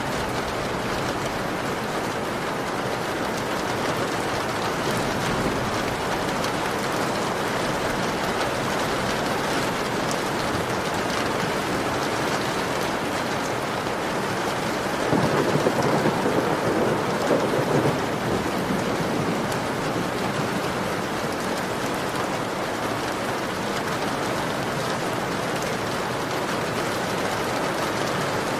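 Heavy rain falling steadily on a window glass. About halfway through, a rumble of thunder lasting about three seconds rises over the rain.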